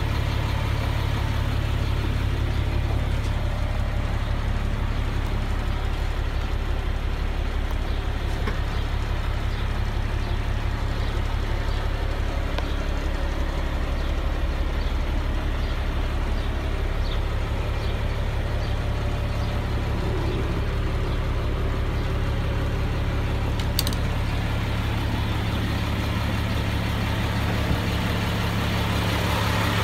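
Semi truck's diesel engine idling steadily, a constant low rumble heard from inside the cab.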